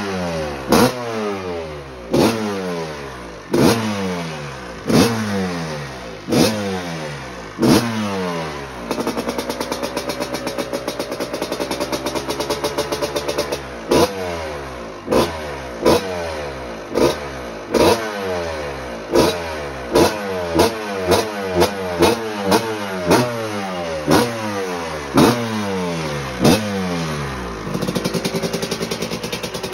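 1986 Maico GM Star 250 single-cylinder two-stroke engine revved in repeated sharp throttle blips, each dying back down toward idle. It settles into a steady idle for a few seconds about a third of the way in and again near the end, and the blips come quicker in the later part. This is its first run after a cylinder head problem was fixed.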